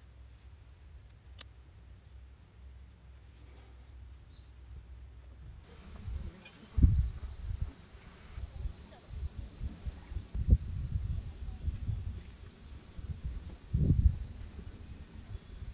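Faint, near-quiet room tone with a single click, then about five and a half seconds in a steady high insect chirring starts suddenly, with wind buffeting the microphone in low gusts and thumps.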